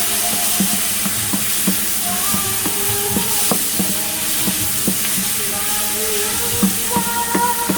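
Bitter melon frying in a pan with a steady sizzle, while a utensil stirs it with frequent irregular clicks and scrapes against the pan.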